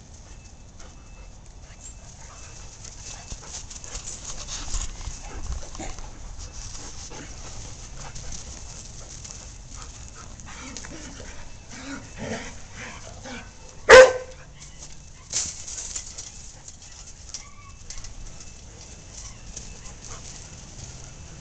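German shorthaired pointers playing rough, with scuffling and short growls, then one loud bark about fourteen seconds in.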